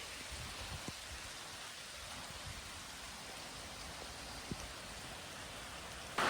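Steady rain falling, a soft even hiss with a few faint separate drop ticks. Just before the end a much louder rush of rain noise cuts in suddenly.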